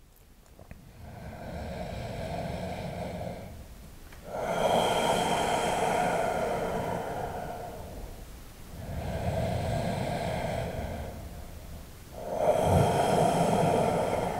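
Slow, deep breathing held in downward facing dog: long drawn breaths of three to four seconds each, alternating softer and louder.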